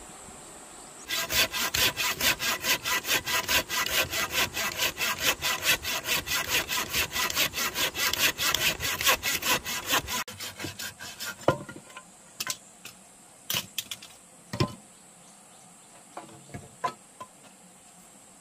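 Hand pruning saw cutting through a green wooden pole in quick, even back-and-forth strokes, about four a second, for about nine seconds. It then stops, and a few separate knocks follow.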